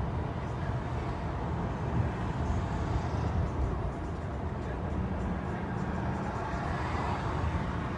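Steady road and engine noise heard inside a moving car's cabin.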